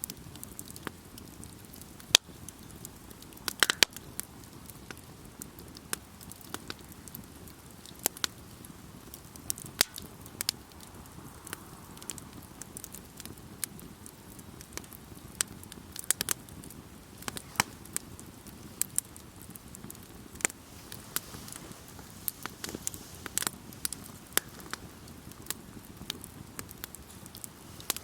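Wood campfire crackling: irregular sharp pops and snaps, a few much louder than the rest, over a steady low hiss of burning.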